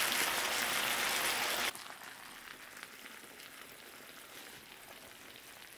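Braised pork back ribs with cheese sizzling in a hot cast-iron pan. A loud, even sizzle drops abruptly about a second and a half in to a quieter, crackling sizzle.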